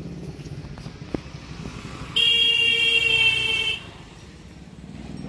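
A vehicle horn sounds once: a single steady, high-pitched blast lasting about a second and a half, starting and stopping sharply. It plays over the low running of an engine.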